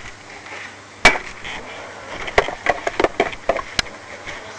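Irregular sharp knocks and taps on a lawnmower being cleaned: one loud knock about a second in, then a scattered run of quicker taps and clicks.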